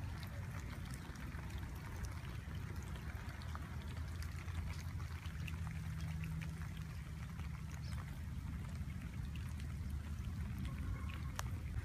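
Steady rain falling on a pool and gravel with runoff water trickling, scattered sharp drop ticks, and a steady low rumble underneath.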